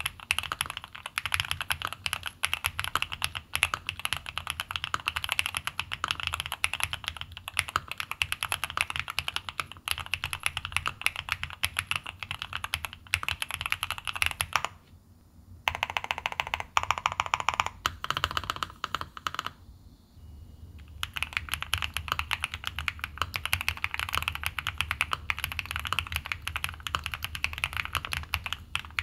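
Fast, continuous typing on a CreateKeebs Luminkey75 mechanical keyboard fitted with Gateron Baby Raccoon linear switches, with brief pauses about 15 and 20 seconds in. About 21 seconds in it changes to the same keyboard with CreateKeebs SOTC linear switches, whose keystrokes sound fuller in the low end.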